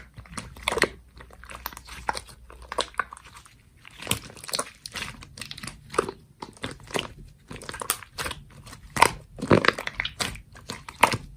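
Slime being squeezed and pressed by hand, giving a run of irregular crackling and popping clicks.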